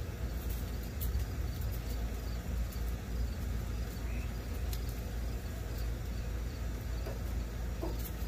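Steady low hum with crickets chirping faintly, and a few light clicks.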